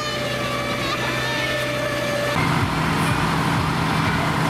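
A steady machine drone with faint voices, which cuts after about two seconds to the diesel engine of a vintage American tractor-drawn aerial ladder fire truck idling with a low, even throb.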